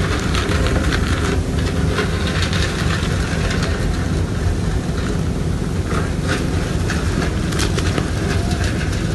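Steady low engine rumble of a cargo ship, with irregular crackles above it.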